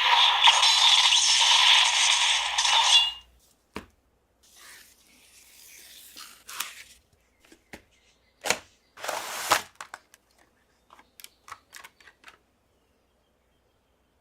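An electronic sound effect from the CSM Lost Driver toy belt's speaker cuts off about three seconds in. Scattered clicks and scrapes follow as the plastic toy is handled.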